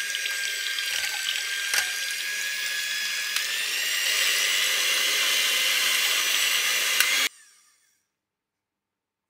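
Electric hand mixer running steadily as its beaters whip egg whites in a glass bowl, with a couple of clicks along the way. Its motor whine rises in pitch about three and a half seconds in, then cuts off suddenly about seven seconds in.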